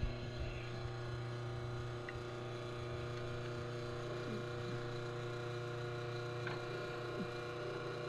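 Steady electric hum from a La Marzocco Leva lever espresso machine while a shot pours into the cup.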